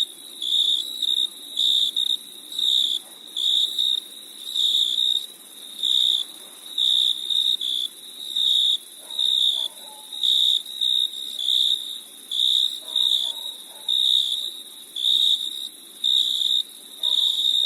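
Crickets chirping: a high, narrow trill repeating in regular pulses, a little more than one a second, over a steady high-pitched hiss.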